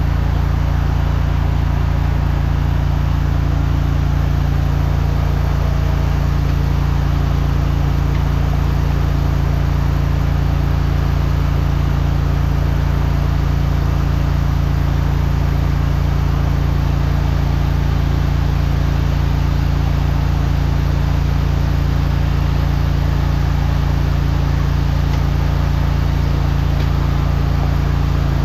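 High-pressure drain jetter running steadily under load: an unbroken engine-and-pump drone with a hiss of water jetting through the hose into the drain pipe.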